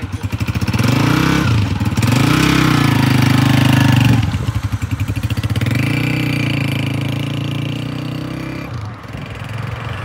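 Honda CG125's single-cylinder four-stroke engine pulling away from idle, its pitch rising, dropping sharply about two and four seconds in as it shifts up, then fading as the motorcycle rides off.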